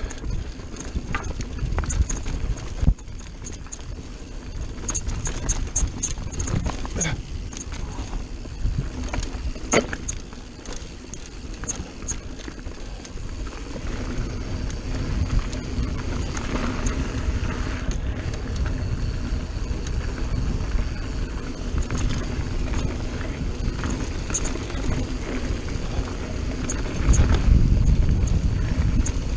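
Mountain bike riding fast down rocky dirt singletrack: a steady low rumble of tyres and wind, with scattered sharp knocks and rattles from the bike over rocks. The rumble grows loudest near the end.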